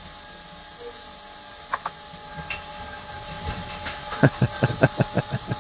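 Two sharp clicks, then a quick run of about ten sharp mechanical knocks, roughly seven a second, over a faint steady hum.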